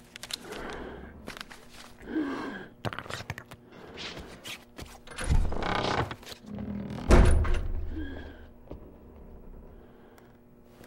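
A series of thuds and knocks, the loudest about seven seconds in.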